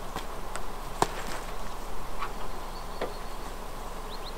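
A few sharp knocks and clanks, the loudest about a second in, as a light steel box trailer is handled and rolled toward a car's tow bar, over a faint steady hum. A few short high chirps come near the end.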